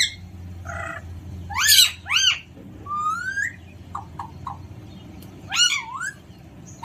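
Alexandrine parrot calling: a series of short, harsh calls that rise and fall in pitch, the loudest two about two seconds in, then a rising whistled note, a few short chirps and one more call near the end. A steady low hum runs underneath.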